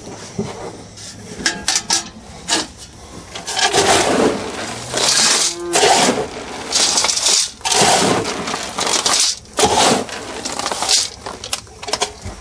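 Livestock feed rattling and rushing into buckets in a string of short pours, with clinks and scrapes between them.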